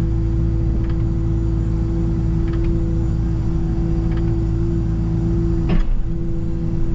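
Excavator engine and hydraulics running steadily, heard from inside the cab, with a constant hum. A faint tick comes about every second and a half, and a sharper knock sounds near the end.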